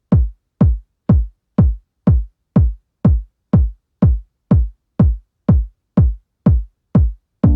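Electronic background music: a lone drum-machine kick drum beating steadily about twice a second, each beat a short thump that drops in pitch. Right at the end, sustained synthesizer chords come in over the beat.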